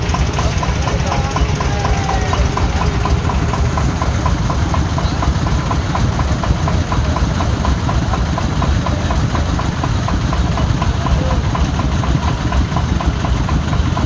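An engine running steadily at idle close by, a constant low rumble with a fast, even pulse.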